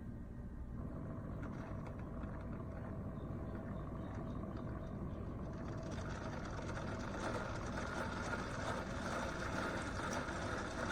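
Cuisinart SS-15P1 single-serve coffee maker brewing a K-cup: its pump runs steadily, and about six seconds in a noisy spray of coffee sets in and grows louder. This is the brew splattering everywhere out of the pod holder, a fault the owner blames on the open hole at the bottom of the K-cup receptacle.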